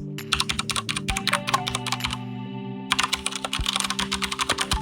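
Typing on a KB Paradise VX80 mechanical keyboard with Cherry MX Brown switches: quick runs of keystrokes with a short pause about two seconds in, pretty quiet and without much clicky sound. Background music with steady tones plays underneath.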